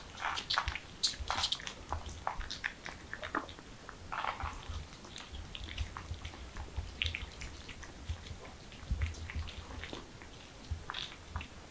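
Several kittens lapping and chewing from a shared saucer: a stream of quick, irregular wet clicks.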